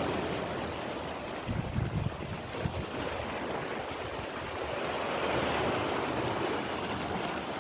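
Sea waves washing on the shore, with wind gusting on the microphone in a few low thumps about two seconds in; a wave swells louder about five seconds in and eases off.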